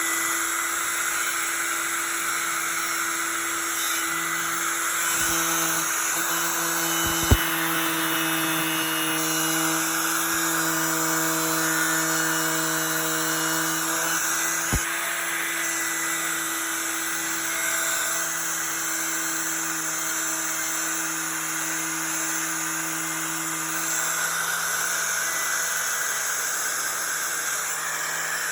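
Milwaukee 11-amp 4-1/2 in angle grinder running steadily with a twisted-knot wire wheel, scouring paint and rust off a metal door: a steady motor hum under a harsh scraping hiss, with a couple of sharp clicks about 7 and 15 seconds in.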